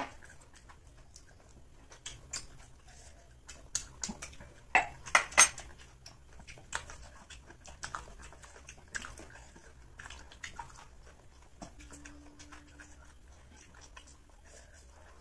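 Eating sounds: chewing and mouth noises of people eating biryani by hand, with scattered small clicks and a few louder clinks of dishes about five seconds in.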